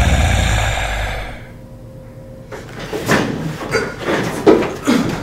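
A loud, low noise fades away over the first second and a half. Then comes a run of knocks and thumps, the loudest about four and a half seconds in, as a person scrambles out of an office chair at a desk.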